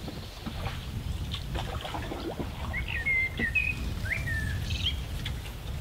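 A songbird singing a few short whistled phrases midway through, over a steady low rumble and a few faint clicks.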